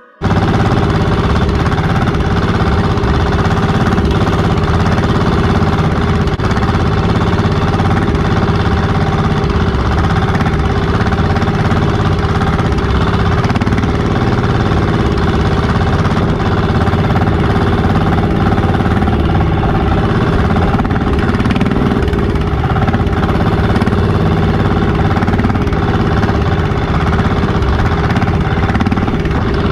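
Outrigger boat's engine running steadily under way.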